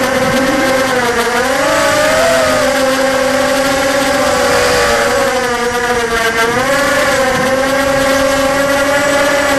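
ZMR250 racing quadcopter's brushless motors and KingKong 5040 propellers whining, heard close up from the onboard camera. The pitch dips and climbs again several times as the throttle changes, over a hiss of rushing air.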